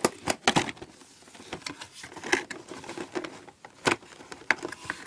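Cardboard Funko Pop box being opened and handled: scattered taps, scrapes and crinkles of card and packaging, with a cluster of knocks right at the start and sharper ones about two and four seconds in.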